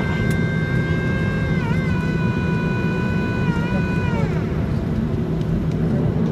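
Boeing 737 cabin noise while taxiing: a steady low rumble with a high jet-engine whine. The whine wavers about two seconds in, then falls in pitch and fades out about four seconds in as the engines wind down.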